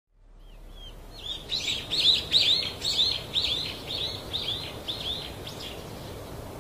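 Small birds chirping: a quick run of short, high, arched chirps over a faint background hush, thinning out and stopping about five and a half seconds in.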